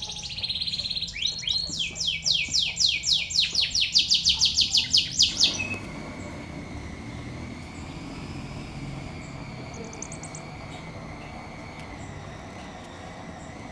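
Five-day-old sogon nestlings giving rapid, loud begging chirps, about four or five a second, while being hand-fed; the calls stop about six seconds in, leaving a steady background hum.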